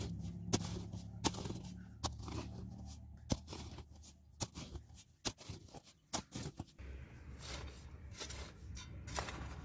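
A metal hoe blade chopping into and scraping through dry, crumbly clay soil: irregular sharp strikes with gritty scrapes between them, over a low steady rumble. The soil is being broken up for brickmaking.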